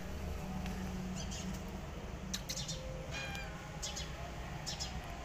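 Four short, high animal calls, the first about two seconds in and then roughly one a second, over a steady low rumble.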